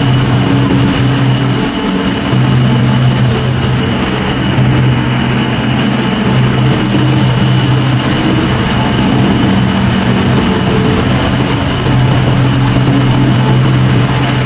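Ship's diesel engines running below decks on a ferry: a loud, steady low drone and hum with a constant wash of machinery noise.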